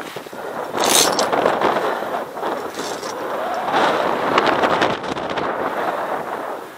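Wind gusting across a helmet camera's microphone, rising and falling, with a few short clicks.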